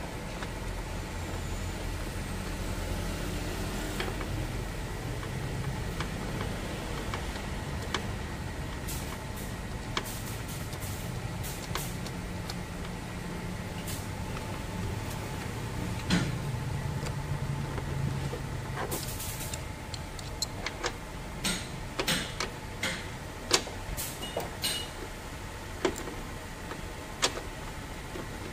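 Hand tools and bolts being worked on an engine's top cover: scattered sharp metallic clicks and taps, most of them in the last third, over a steady low hum.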